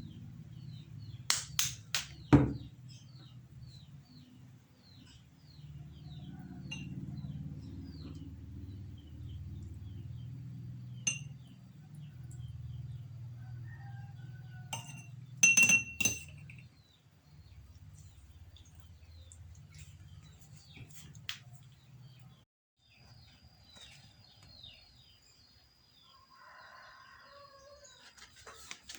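Small birds chirping repeatedly in the background, with sharp ringing clinks of kitchenware a few times near the start and again around the middle. A low steady hum stops about three-quarters of the way through.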